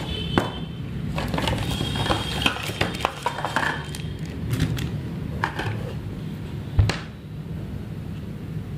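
Small objects handled and set down on a table: scattered clicks and taps, with one louder knock about seven seconds in.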